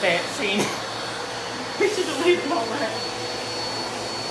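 Upright vacuum cleaner running steadily: an even motor rush with a steady high whine, with brief voices over it.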